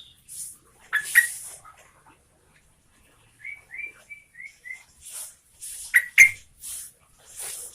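Yellow-vented bulbul (trucukan) singing: loud sharp notes about a second in and again near six seconds, a run of about five quick whistled notes in the middle, and short hissy chatters between them.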